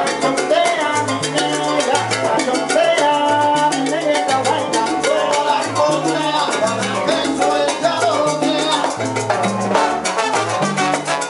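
Live salsa band playing: a bass line in short notes under fast, steady percussion and brass, with a trombone playing toward the end.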